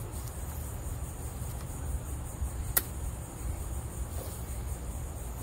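A steady, high-pitched chorus of insects trilling, over a low rumble, with a single sharp click just under three seconds in.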